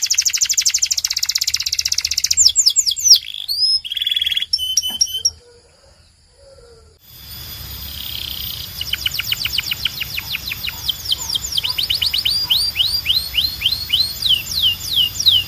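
Domestic canary singing. A rapid trill and a few varied notes are followed by a pause of about two seconds. The song then resumes with a long series of repeated downward-sweeping whistled notes that gradually slows.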